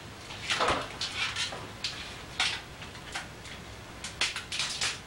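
Scattered knocks, clicks and rustles of kitchen things being handled as an ingredient is fetched. The loudest comes about half a second in with a brief falling squeak.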